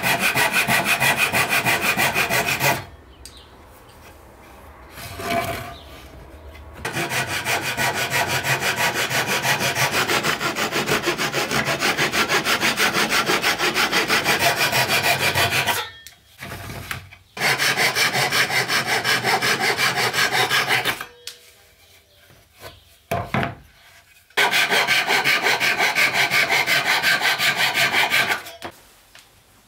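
A Japanese-style handsaw cuts through pine in fast, even strokes, trimming the end of a sliding dovetail key flush with the board's edge. There are four bouts of sawing, with short pauses between them.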